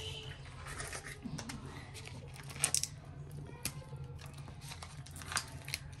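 A steady low hum with a few faint clicks and rustles of ingredients being handled over a plastic mixing bowl.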